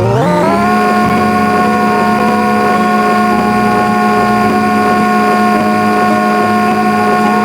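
A loud, steady motor-like whine with a strong hum and several higher overtones. It rises quickly in pitch in the first half second, as if spinning up, then holds at one pitch.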